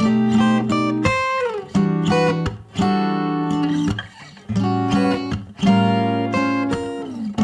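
Background music led by an acoustic guitar, strummed and picked chords in short phrases.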